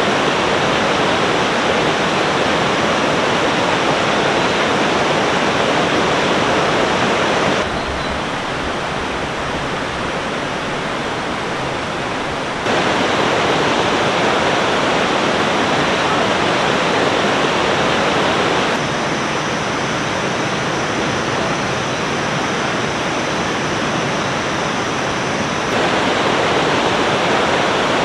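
Steady rush of a river flowing over rocks, an even roar of water. The level drops abruptly twice and comes back up each time.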